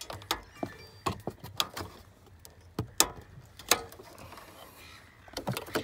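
Plastic clicks and rattles of wiring-harness plugs being squeezed at their lock clips and worked loose by hand behind a car stereo head unit. The sharp clicks come irregularly, with a quick cluster near the end.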